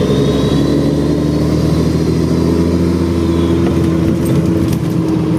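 1975 Scania truck's turbocharged diesel engine running under way, with the turbocharger's high whine rising over the first couple of seconds and then falling away. The engine is running with no air filter fitted.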